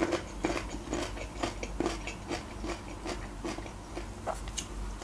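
A person chewing food with the mouth closed, close to the microphone: a run of short, wet mouth clicks and squelches, a few every second.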